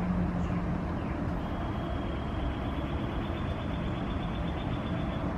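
Steady outdoor background noise, a low, even rumble of distant traffic. A thin, high, steady trill comes in about a second and a half in and stops just before the end.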